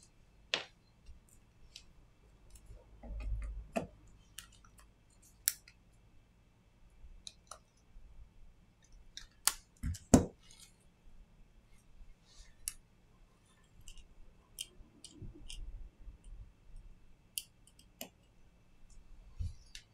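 Irregular small clicks and taps of hand tools and phone parts being handled during a smartphone screen repair, the two sharpest clicks about halfway through, with a few soft bumps of handling.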